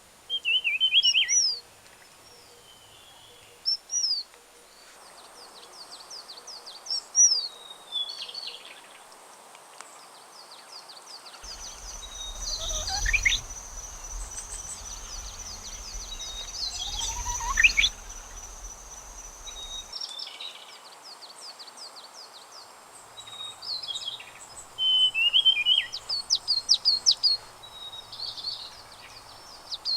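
Wild songbirds calling: short chirps and quick falling whistles, heard in several separate recordings joined by cuts. A steady high tone with a low rumble runs under the calls through the middle, and a fast run of repeated notes comes near the end.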